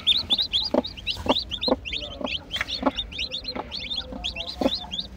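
Newly hatched chicks peeping constantly in quick, high-pitched cheeps, with the brooding hen giving short low clucks about twice a second.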